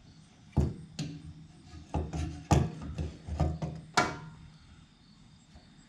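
Irregular knocks and clunks, about six over four seconds, as a fuel sending unit is worked into a car's gas tank.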